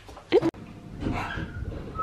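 A dog gives one short, rising whine that is cut off abruptly about half a second in, followed by quieter shuffling noise.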